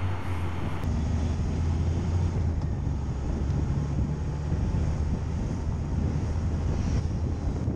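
Motorcycle engine running steadily while riding in third gear, with wind noise on the microphone.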